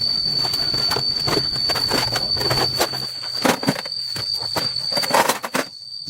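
Repeated clanks and knocks of tools on metal over a steady high-pitched whine; the whine drops out briefly near the end.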